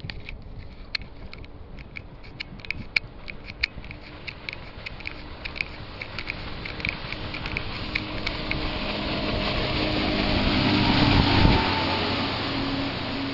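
Twin Suzuki 225 outboard engines driving a catamaran at speed, approaching and passing close with rushing water and spray. The sound grows louder to a peak about eleven seconds in as the boat goes by, then fades. A series of sharp clicks runs through the first several seconds.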